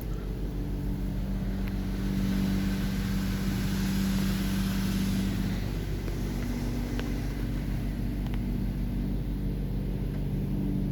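Oasis Typhoon automatic car wash heard from inside the car: water spray on the car swells to a hiss for a few seconds in the middle, over a steady low hum.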